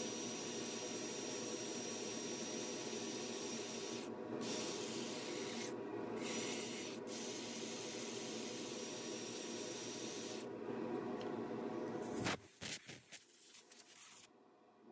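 Power sanding: a cordless drill spins a sanding pad against a cedar bowl turning on the lathe, giving a steady abrasive hiss over a faint motor hum. The hiss drops out briefly a few times. About twelve seconds in it stops, followed by a few short faint sounds.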